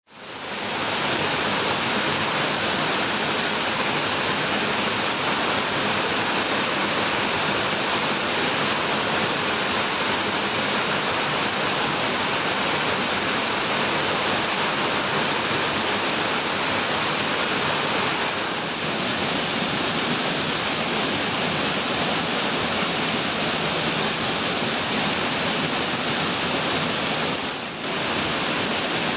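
Waterfall with a 16 m drop pouring into its plunge pool: a steady, dense rush of falling water that swells up within the first second and dips briefly twice in the latter part.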